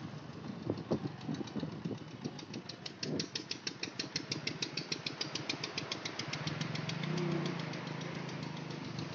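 Motorcycle engine running while riding slowly, with a rapid even ticking, about ten a second, from about three seconds in, and a low engine hum that grows louder in the second half.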